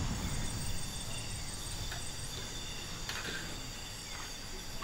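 Night-time insect chorus: several insects calling at once with steady high-pitched trills, one pulsing rapidly, over a low background rumble.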